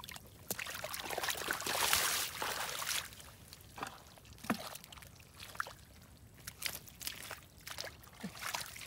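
Hands splashing and scooping through shallow muddy water, loudest for a couple of seconds near the start, then scattered drips, small splashes and wet squelches in the mud.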